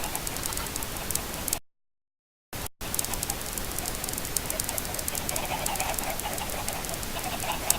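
A flock of chickens making low clucking calls over a steady crackling hiss of many small clicks. The sound cuts out completely for about a second near the middle, then comes back.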